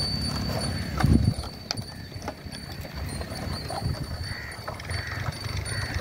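A pair of bulls pulling a wooden plough through tilled soil, their hooves stepping as they walk, with a low thump about a second in.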